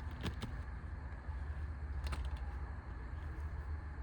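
A few light clicks from a small metal keychain multi-tool being handled and unfolded, over a steady low hum.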